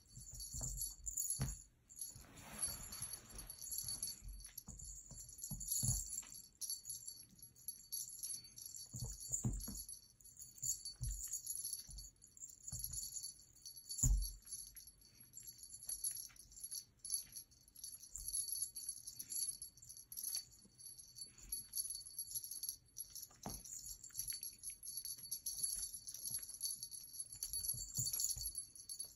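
Small bell on a feather wand cat toy jingling steadily as the toy is shaken, with scattered soft thuds of a kitten pouncing on the carpet, the loudest about halfway through.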